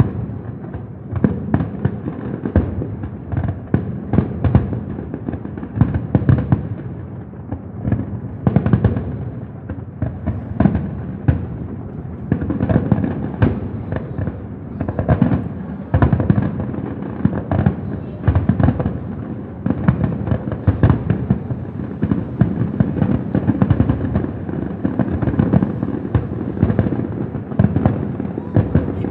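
Fireworks going off in a dense, unbroken barrage: booms and crackling bursts several times a second over a constant low rumble.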